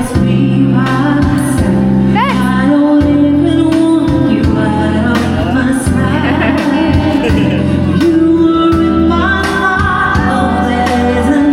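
Loud party music playing: a song with a female singing voice over a steady beat and bass line.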